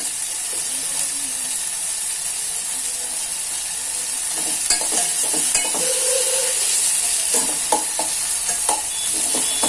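Onion-tomato masala sizzling in hot oil in a pan, with a spatula stirring it and now and then scraping and tapping the pan, more often in the second half.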